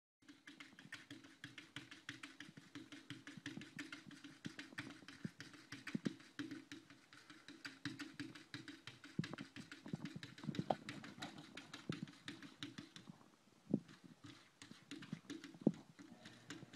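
Cat's paws batting against window glass: a fast run of light taps and clicks, several a second, with a few louder knocks, thinning out near the end. A faint steady low hum lies underneath.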